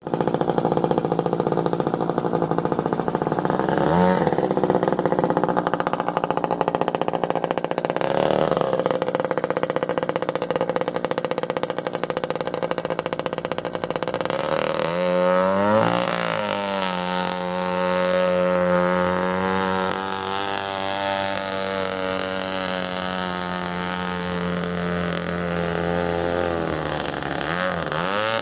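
Straight-piped 21.2 cc Echo two-stroke string-trimmer engine driving an RC boat, running at high revs. Its pitch drops sharply and climbs back about halfway through, and again near the end.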